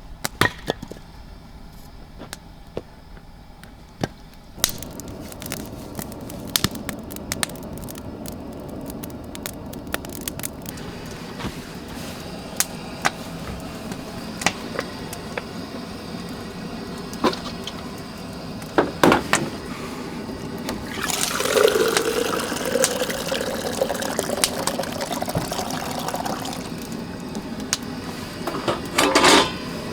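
Water pouring and running, loudest about two-thirds of the way through, with scattered small clicks and knocks of handling.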